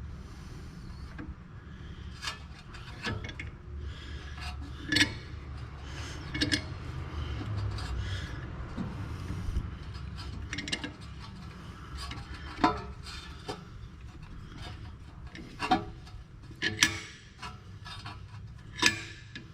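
Irregular metal clinks, knocks and scraping as a C-clamp and an old brake pad are handled and fitted against a disc brake caliper to press its piston back. The sharpest clinks come in clusters about a quarter of the way in and again in the last third, over a low steady hum.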